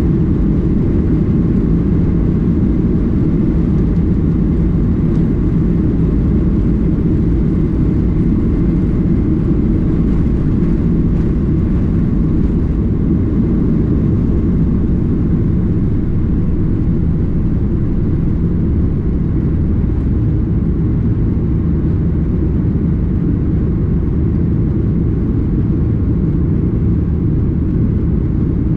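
Steady low rumble of a Boeing 737-800's engines and airflow, heard from inside the passenger cabin.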